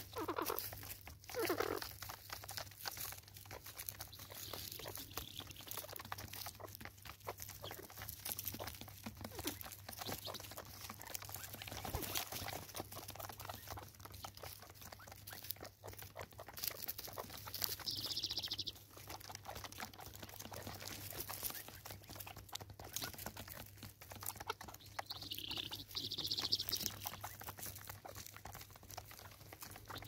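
Helmeted guineafowl pecking birdseed off wooden stumps: a continuous rapid patter of beak taps and seed crunching. Two short high bird calls come, about halfway through and near the end.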